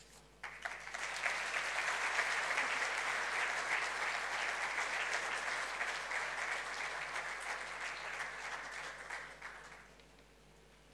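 Audience applauding. The clapping starts about half a second in, holds steady, and dies away in the last second or so.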